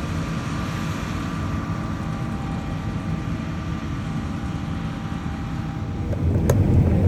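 Combine harvester running steadily while harvesting wheat, its engine and machinery heard as a low drone from inside the cab. About six seconds in the low rumble grows louder, with a single sharp click.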